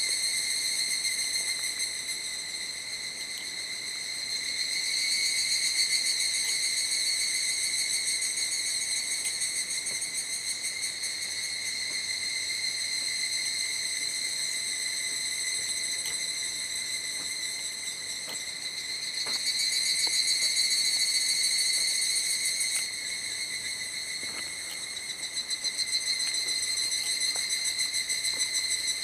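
Insects trilling in a continuous high-pitched drone that swells louder a few times and fades back.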